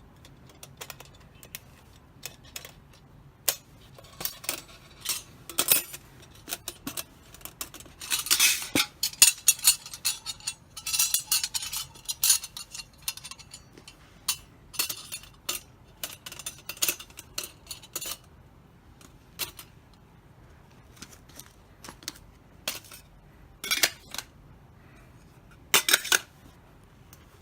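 Thin metal parts of a small folding fire stand clinking and clattering as they are handled, a long run of irregular sharp clinks that is busiest about a third of the way in.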